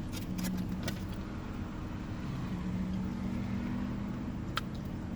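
Eating sounds: a few light clicks of utensils against a food container near the start and one more near the end, over a steady low hum.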